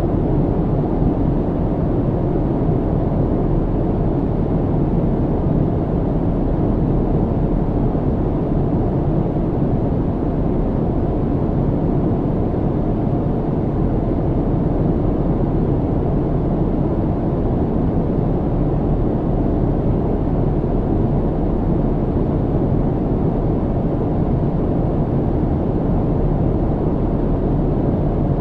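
Airplane cabin in flight: a steady, even low drone of engine and airflow noise that does not change.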